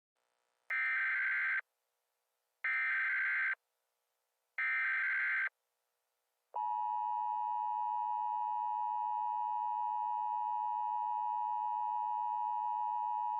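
Emergency Alert System tones: three short bursts of SAME header data, each under a second long with a pause between them. About six and a half seconds in, the steady two-tone EAS attention signal begins and holds.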